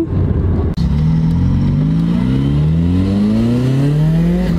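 Nissan SR20DET turbocharged four-cylinder engine in a BMW E30 pulling under acceleration, its note climbing steadily with the revs from about a second in, heard from inside the cabin.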